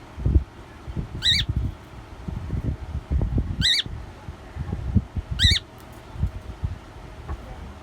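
Cockatiel giving three short rising chirp calls, about two seconds apart, over irregular low thumps.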